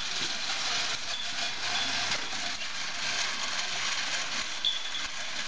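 Several kinetic sculptures' gear-and-chain mechanisms running together: a steady, busy mix of metal rubbing, ratcheting and gear clatter.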